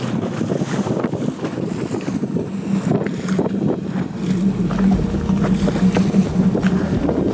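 Boat engine running under way, with wind buffeting the microphone and water rushing past the hull. The engine's hum grows steadier and stronger about four seconds in.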